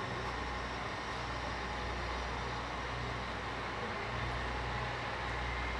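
C58 steam locomotive standing at a station platform: a steady noise with a low hum underneath and a faint steady whine, without let-up.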